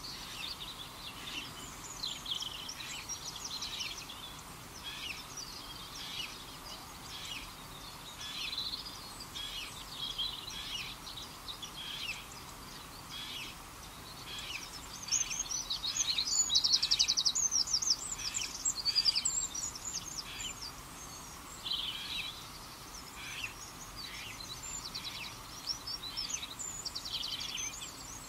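Birdsong: several birds chirping and trilling, with a louder, fast trill of repeated notes about halfway through, over a steady background hiss.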